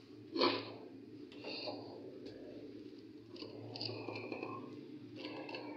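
Metal spoon scraping and dabbing garlic mayonnaise across a paratha, with one sharper knock about half a second in, over a steady low hum.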